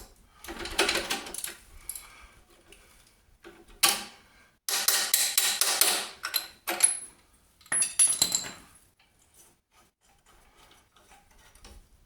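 Metal clattering and scraping as seized bolts and spanners are handled on a corroded car rear subframe. Several bursts come in the first 9 seconds, with a sharp knock about 4 seconds in and brief bright metallic rings near 7 and 8 seconds, then it goes quiet.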